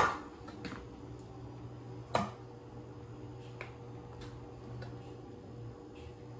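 Kitchen handling sounds: a sharp knock of cookware or utensils right at the start, another about two seconds in, then a few lighter ticks, over a steady low hum.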